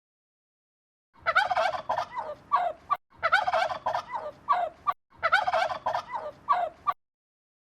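A bird calls in three bursts of rapid, warbling notes, each just under two seconds long, starting about a second in.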